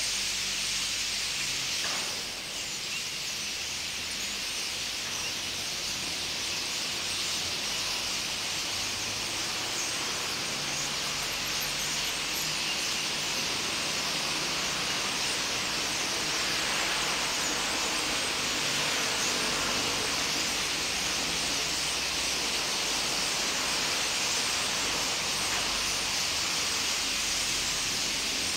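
A large flock of birds calling all at once, their many overlapping calls blending into a steady, high, hiss-like din.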